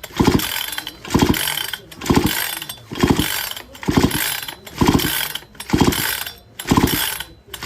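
Chainsaw recoil starter rope pulled again and again, a little under once a second, about eight pulls in a row. The engine is being cranked with the spark plug out in its cap and laid on the cylinder to check for spark.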